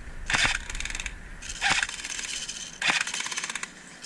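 Airsoft electric M249 light machine gun (A&K MK1) firing three bursts of full-auto, each about a second long, as a fast run of clicks from the gearbox cycling.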